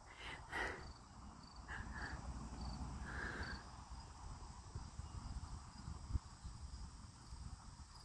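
Faint woodland ambience: three short, faint chirps in the first few seconds over a low rumble, and a single low thump about six seconds in.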